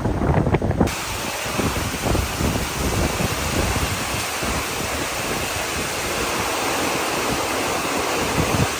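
High winds of a thunderstorm: gusts buffeting the microphone, then about a second in an abrupt change to a steady rushing hiss of wind and water.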